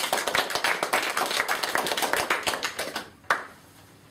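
A small audience applauding, a dense patter of hand claps that stops about three seconds in, followed by a single sharp knock.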